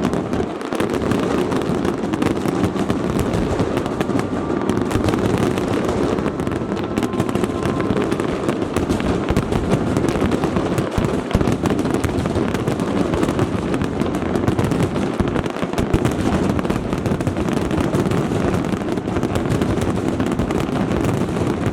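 Fireworks display: a dense, continuous barrage of bursts and crackling with no pause.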